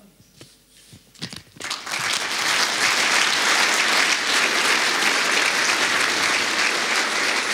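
Audience applauding: a few scattered claps about a second in, then full steady applause from about two seconds on.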